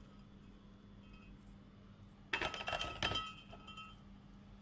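Cooking pan clinking against a glass Pyrex baking dish as ground beef is scraped into it: a quick cluster of ringing clinks about two and a half seconds in, dying away a second later.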